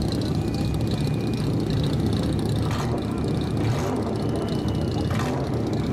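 Loud, steady, deep rumble of straight-piped car exhausts running.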